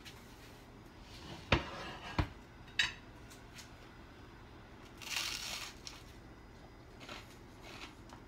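A plate set down on the counter with two sharp clinks about one and a half and two seconds in, then a crunching bite into a slice of toast about five seconds in, followed by quiet chewing.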